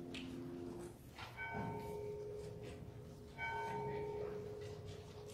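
A bell struck at slow, even intervals: the ring of an earlier, louder strike dies away in the first second, then two fainter strikes of the same pitch, about two seconds apart, each ringing on and fading.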